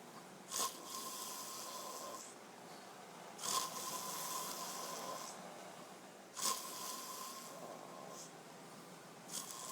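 A sleeper snoring loudly and regularly: four snores about three seconds apart, each starting with a sharp snort and carrying a thin whistle through its drawn-out breath, the last one near the end.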